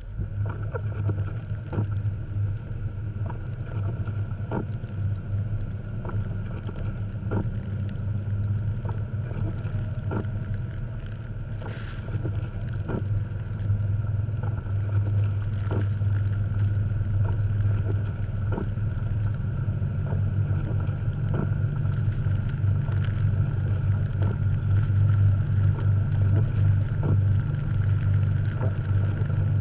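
Jeep Cherokee XJ engine running under load, driving through deep fresh snow: a steady low drone that gets louder about halfway through and again near the end, with faint knocks every second or two.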